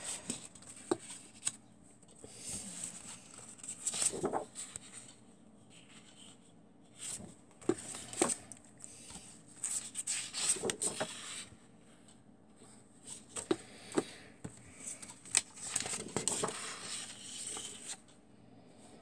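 Sheets of card and paper being handled: intermittent rustling and sliding as the sheets are turned over and moved, with a few sharp clicks as they are set down.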